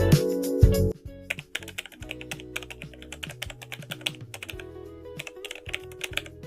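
Background music that drops sharply about a second in, followed by rapid, irregular clicks over soft continuing music.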